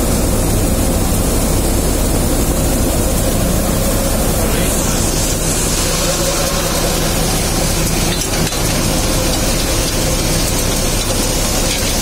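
Wheeled threshing machine running steadily while threshing cumin: a loud, continuous mechanical drone with a steady hum.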